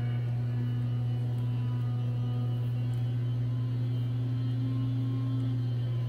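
Steady low electrical hum, mains hum, unchanging throughout.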